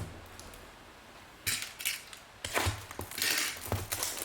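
Trading-card packs and packaging being handled on a table: a knock at the start, then rustling and crinkling of wrappers from about a second and a half in, getting busier toward the end.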